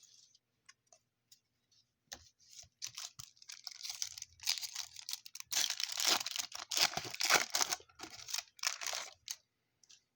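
A baseball card pack wrapper being torn open and crinkled in the hands: a run of crackling crinkles that builds up and is loudest in the middle, then stops.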